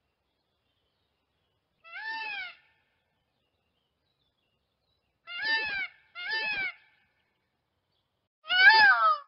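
Peafowl calling: four short wailing calls, each arching up and falling in pitch. One comes about two seconds in, a close pair follows in the middle, and the loudest comes near the end.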